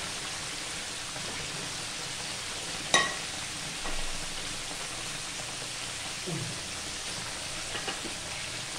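Whole chicken deep-frying in hot oil in a wok, with a steady sizzle. About three seconds in there is a single sharp, ringing clink.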